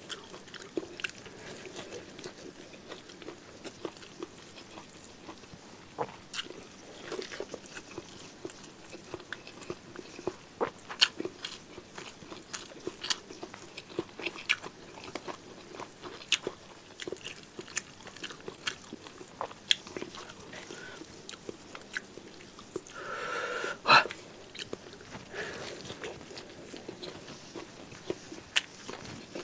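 Close-up mouth sounds of a man eating rice and spicy beef tongue by hand: chewing and biting, with many short irregular clicks. About six seconds before the end comes a brief louder sound with one sharp click.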